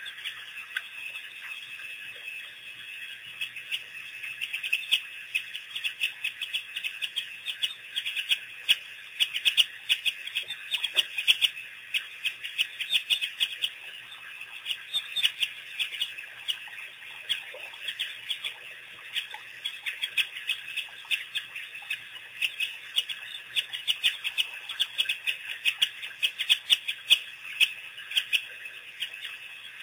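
A pack of African wild dogs twittering: a dense, continuous stream of rapid, high-pitched, bird-like chirps and squeaks from many animals at once.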